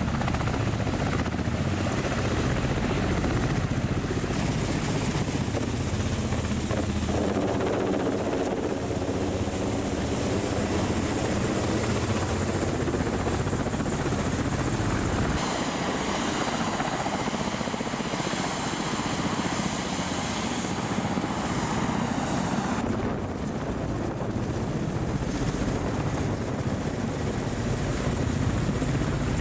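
Attack helicopter running in flight, a steady rotor beat with engine noise. The sound changes abruptly about halfway through and again about two-thirds of the way in, as different recordings are cut together.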